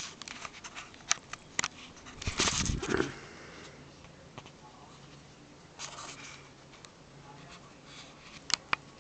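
Kittens playing on a bed: scattered sharp clicks and taps with rustling of bedding, and a louder thump and rustle about two and a half seconds in as a kitten jumps.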